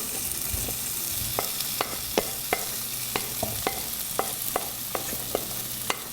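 Boiled liver frying in a masala of shallots, garlic and spices in coconut oil, sizzling steadily while a spoon stirs it. From a little over a second in, the spoon knocks against the pan about two to three times a second.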